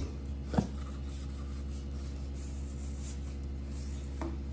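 Short plastic knocks as a reverse-osmosis membrane element is worked out of its cut-open plastic housing: one a little over half a second in, the loudest, and a fainter one near the end, over a steady low hum.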